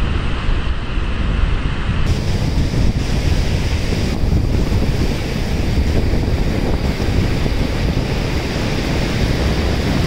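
Ocean surf washing onto the beach, with wind buffeting the microphone in a steady low rumble.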